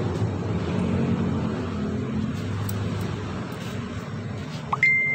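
A vehicle engine runs steadily with a low hum. Near the end, a sharp metal click rings on as one high tone for about a second while a screwdriver works in the AC compressor clutch pulley.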